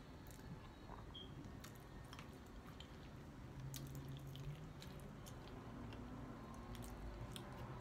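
A person chewing food close to the microphone, with faint wet mouth clicks and smacks.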